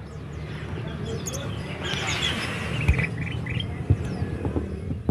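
Lovebirds chirping: many short, high chirps and quick runs of notes, with a couple of sharp knocks.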